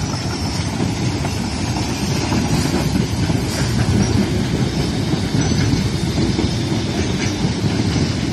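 Harz narrow-gauge steam locomotive 99 7232-4, a metre-gauge 2-10-2 tank engine, rolling past close by with a steady rumble and a few light clicks of wheels over rail joints.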